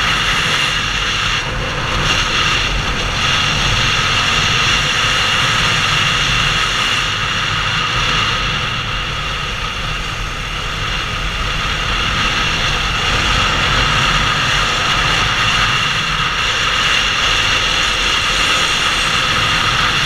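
Suzuki SV650's V-twin engine running at steady road speed under way, heard with wind rushing over the camera's microphone; the level eases slightly about halfway through.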